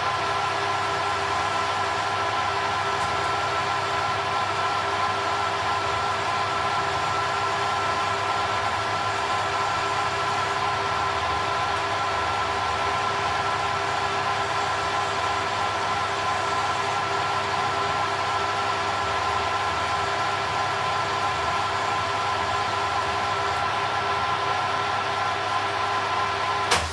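Metal lathe running steadily, with a hacksaw blade held against the spinning workpiece to cut it off, making a continuous scraping hiss over a few steady tones from the machine. Near the end the lathe is switched off with a click and the sound stops abruptly.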